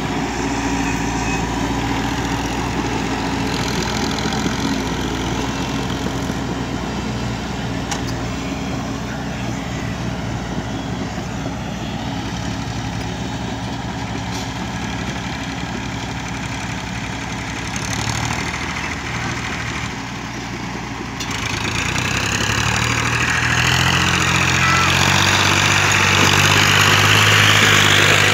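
Diesel engine of a Volvo crawler excavator running steadily as the machine tracks across sandy ground. About two-thirds of the way through, the sound changes abruptly to a louder, deeper engine hum.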